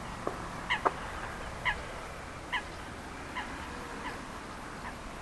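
A bird calling over and over: a short, slightly falling call about once a second, six times, fading toward the end. A sharp tap sounds just under a second in.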